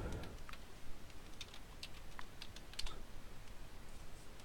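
Computer keyboard typing: a string of key clicks as a search query is typed, finishing with the Enter key.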